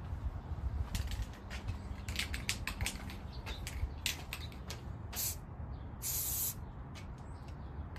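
Aerosol can of satin clear coat spraying in short bursts: a brief spray about five seconds in, then a longer half-second spray just after six seconds. Before the sprays comes a run of small clicks and rattles.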